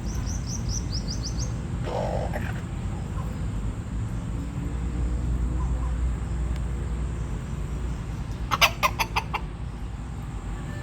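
Rooster clucking: a short call about two seconds in and a quick run of loud clucks near the end, with thin high chirps at the start and a steady low rumble underneath.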